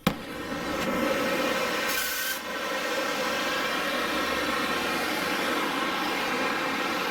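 Portable oxy-acetylene torch lit with a sudden pop, then burning with a loud, steady rush of flame and gas while the flame is set. A brief sharper hiss comes about two seconds in.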